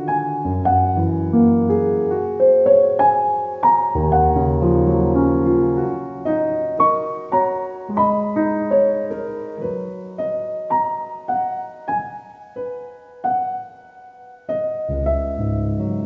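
Gentle solo piano background music, notes struck one after another over low bass notes.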